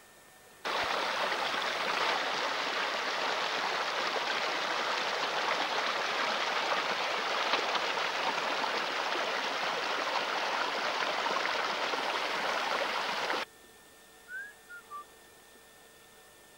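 Mountain stream running, a steady rush of water that starts suddenly just under a second in and cuts off abruptly near the end, followed by a few short high chirps.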